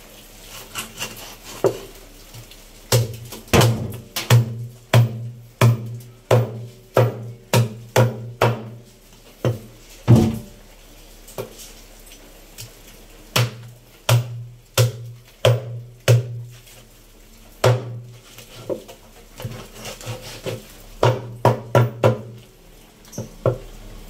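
Meat cleaver chopping a whole chicken into pieces on a wooden cutting board: heavy chops with a low woody thud, in quick runs of about two a second, broken by short pauses.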